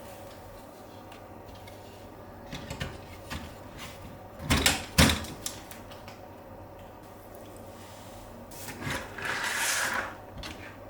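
PC case and components being handled during assembly: a few light clicks, then two louder knocks about halfway through, and a sliding scrape near the end, over a steady low hum.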